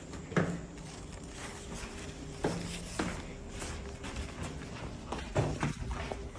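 A few irregular footsteps on a hard tiled floor, about five thumps spread unevenly over the few seconds, with some handling noise from the phone.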